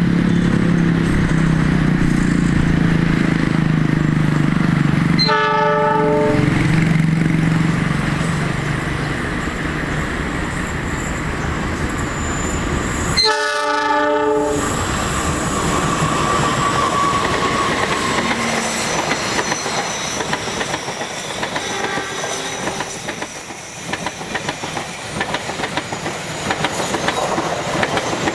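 Diesel-electric locomotive hauling a passenger train past, its engine rumbling as it passes, sounding two short horn blasts, each about a second long, some eight seconds apart. After that the coaches roll by with a steady clickety-clack over the rail joints.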